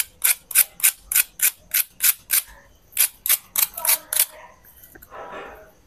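Knife blade rasping in quick short strokes against the crisp breadcrumb crust of a deep-fried vegetable chop, about three crunchy scratches a second with a short pause about halfway; the sound shows how crunchy the crust is.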